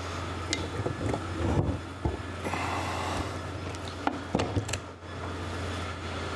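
Metal clinks and knocks as the ProGator transmission case and gear cluster are moved and handled on a wooden workbench: about half a dozen separate sharp contacts over a steady low hum.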